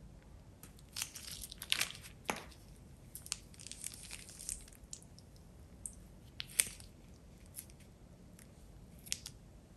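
Plastic piping bag crinkling and crackling in the hand as it is squeezed to pipe slime. The crinkles come in irregular clusters, busiest in the first half, with a few sharp single crackles later.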